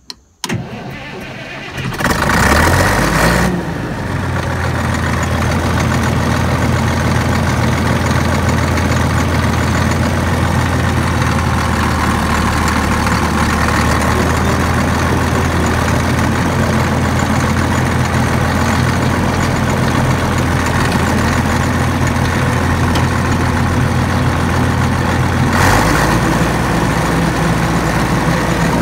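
Cat D6 bulldozer's Caterpillar 3306 six-cylinder diesel engine starting: a click, a few seconds of cranking before it fires, then idling steadily. Near the end the engine note changes.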